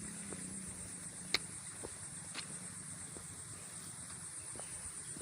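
Insects shrilling steadily at a high pitch, with a few faint clicks and one sharper click about a second and a half in.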